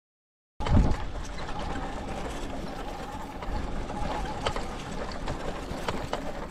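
E-bike in motion on a trail: steady wind and rolling noise with a faint steady whine from the 750-watt kit motor and scattered ticks. It cuts in abruptly about half a second in, with a low thump.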